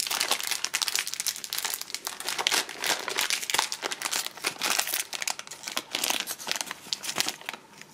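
A crinkly Milka Snowballs chocolate wrapper being crumpled and torn open by hand, a dense crackling that stops near the end.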